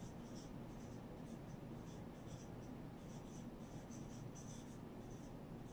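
Whiteboard marker writing on a whiteboard: a run of faint, short, high squeaks and scratches, one for each pen stroke, over low room hiss.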